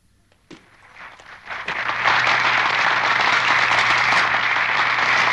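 Crowd applause: a few scattered claps begin about half a second in and swell into steady, dense clapping by about two seconds.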